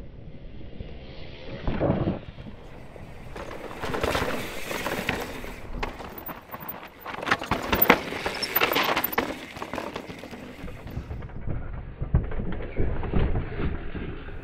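Intense Tracer S enduro mountain bike riding over dirt and rock: tyres rolling and skidding over loose ground in several loud passes, the loudest about halfway through, with a few sharp knocks from the bike near the end.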